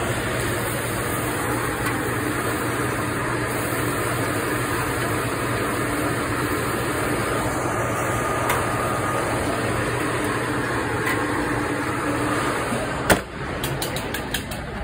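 Steady rushing hum of commercial kitchen fans. A sharp knock comes near the end, after which the hum is much quieter.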